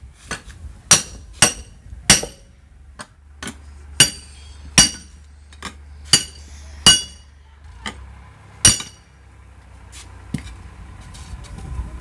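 Hammer blows on a steel tyre lever wedged against the bead of a tempo (auto-rickshaw) tyre on its steel rim, breaking the bead loose. About a dozen sharp, ringing metallic clanks come irregularly, every half second to a second. The heavy blows stop about nine seconds in, followed by a few fainter knocks.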